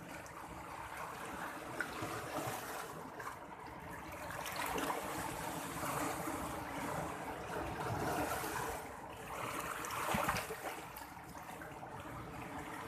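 Sea water washing and splashing, swelling and easing in surges, loudest about ten seconds in.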